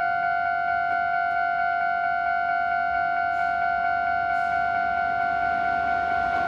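Japanese railway level-crossing warning bell ringing: an electronic ding at a steady pitch, repeating quickly and evenly while a train approaches.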